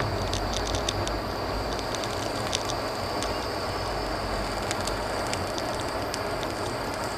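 A mini blowtorch flame burning with a steady hiss, with scattered faint sharp ticks through it.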